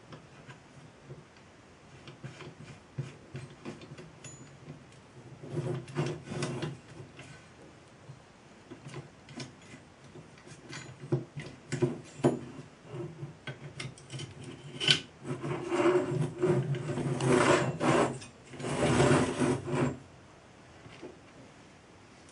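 Small metal parts of a model steam traction engine being fitted and turned by hand: scattered clicks and metal rubbing, with louder stretches of rapid clicking and gear rattle about six seconds in and again in the second half.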